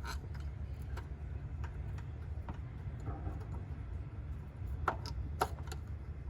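Scattered light clicks and taps of small metal parts being handled while the throttle body is fitted back onto the truck, with two sharper clicks about five seconds in, over a steady low rumble.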